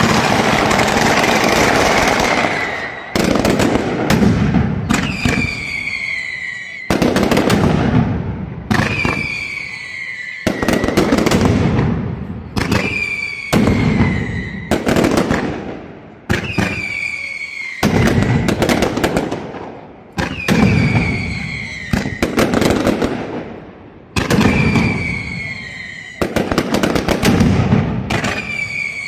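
Mascletà: a daytime barrage of loud firecrackers, a dense continuous roar at first, then coming in repeated surges about every two seconds. Each surge opens with a volley of sharp bangs and whistles that fall in pitch, then dies away.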